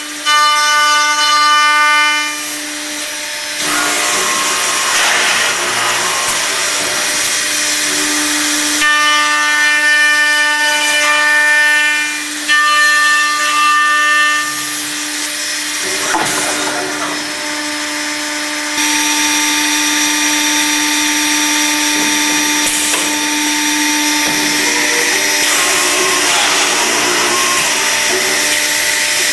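Spindles of an Accu-Systems HVPP boring and routing machine running with a steady, many-toned whine. The whine stops and restarts several times, and in between there are stretches of harsh cutting noise as the bits machine cup-hinge bores into wooden doors.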